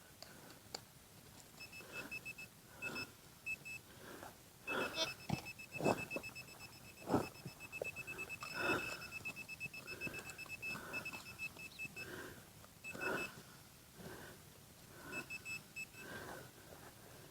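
Metal detector beeping in one fixed high tone, in runs of short rapid beeps that start and stop several times, some runs lasting a few seconds. Irregular knocks and scrapes of digging in soil sound between the beeps.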